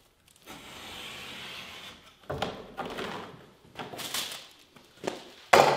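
Sharp utility knife slicing through a carpet tile: one long drawn cut, then several shorter strokes, with a sharp knock about five and a half seconds in.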